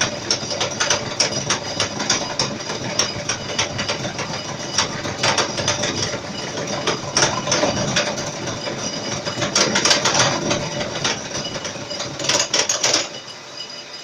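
End mill facing a round metal weight blank on a rotary table: a loud rattling chatter of the cutter on metal, full of dense irregular clicks. It drops off sharply about 13 seconds in.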